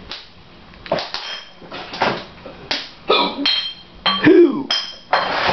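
A run of sharp knocks and clinks, several with a short high ringing, from beer bottles being handled and knocked together. There is a brief vocal sound about four seconds in.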